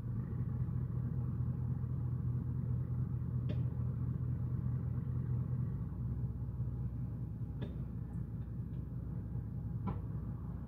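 Steady low engine rumble heard from a distance, with three faint clicks scattered through it.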